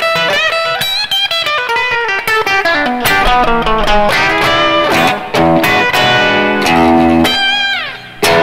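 PRS SE Custom electric guitar with a roasted maple neck, played on its bridge pickup: a lead line of string bends and quick runs of notes. Near the end a held note slides down in pitch, then comes one sharp picked hit.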